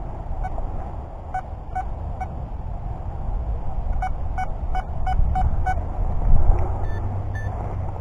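Anfibio Multi metal detector giving short beeps of one pitch as the coil sweeps over a buried target: about five, then a quicker run of six starting about four seconds in, over a steady low rumble. The detectorist reads it as a real target signal, not the sprinkler system.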